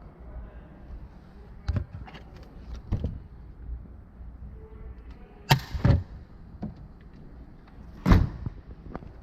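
A series of sharp knocks and clunks, five or so spread over several seconds, the loudest a pair about halfway through and a single heavy one near the end, over a low steady hum.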